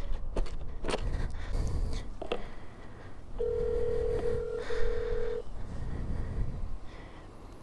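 Mobile phone on speaker playing the ringback tone of an outgoing call: one steady ring lasting about two seconds, a little past the middle. It follows a few sharp clicks and knocks from handling the phone.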